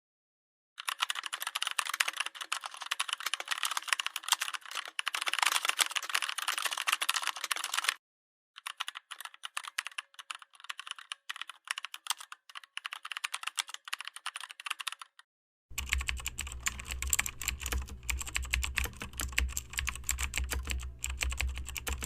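Rapid typing on a computer keyboard, in three separate runs of about seven seconds each with short breaks between them; the third run has a steady low hum under the clicks.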